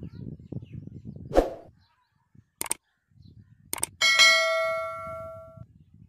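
Subscribe-button animation sound effect: a short burst, two sharp clicks, then a bright bell ding that rings out and fades over about a second and a half. Faint low wind rumble on the microphone underlies the first two seconds.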